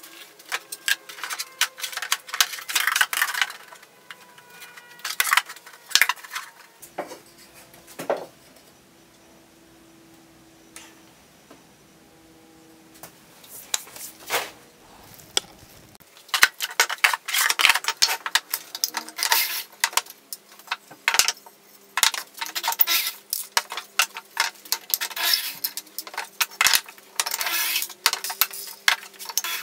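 Wooden parts and loose screws being handled on a workbench: irregular clinks and knocks, in dense clusters near the start and through the second half, with a quieter stretch in the middle.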